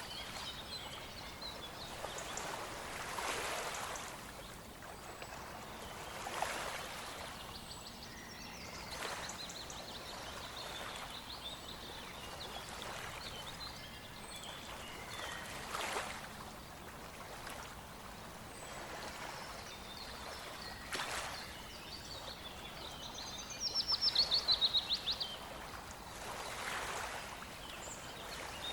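Small birds chirping and singing over the steady rush of a stream. Near the end one bird gives a loud, fast trill of rapidly repeated high notes, the loudest sound.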